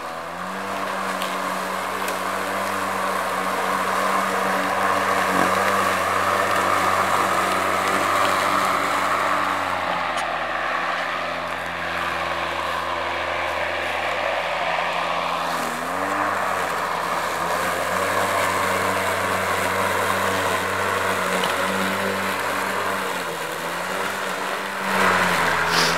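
Ryobi 20-inch cordless electric lawnmower running while cutting grass: a steady motor hum over a rushing of blade and grass. The hum sags briefly in pitch and recovers a few times as the blade bites into thicker, wet grass.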